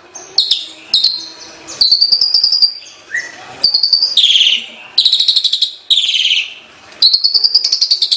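Asian pied starling singing: a run of about eight loud, harsh, rattling phrases, each under a second with short gaps between, several sweeping downward in pitch.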